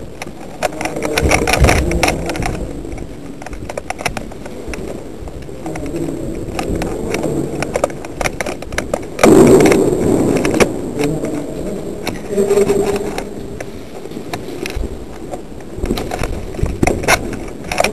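Movement and handling noise from a player moving in the dark: a run of irregular clicks, knocks and rustling, with one louder noisy burst about nine seconds in.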